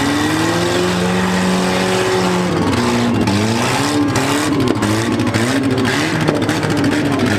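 Small-car engines of demolition-derby minis revving hard. One engine is held high, drops about two and a half seconds in, then revs up and down rapidly, with a few sharp knocks in the middle.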